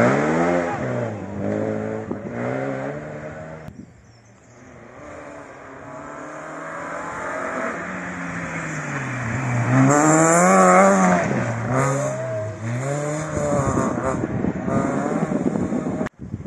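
Rally car engine at full throttle, the pitch climbing and dropping repeatedly as it revs and shifts gears. It dips low about four seconds in, then builds up to its loudest about ten seconds in, and cuts off abruptly just before the end.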